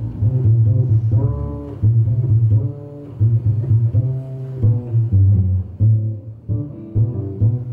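Live jazz trio music: a plucked upright double bass playing a steady line of low notes, with a hollow-body electric guitar playing chords and notes above it.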